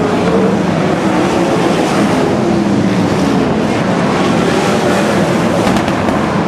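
Several winged sprint cars racing past on a dirt oval, their engines loud and continuous under throttle.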